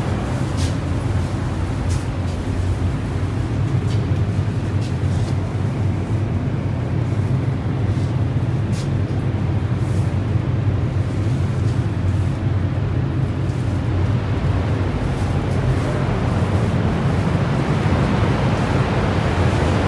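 Niagara's Horseshoe Falls heard from the tunnels behind it: a steady, deep rumble of falling water that never lets up.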